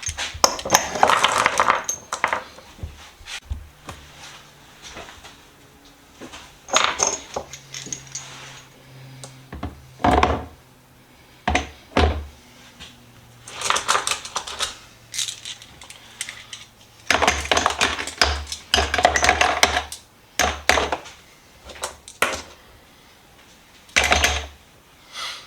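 Small steel sockets and wrenches clinking and rattling against each other as they are handled and dropped into a container, in a dozen or so separate bursts with short pauses between.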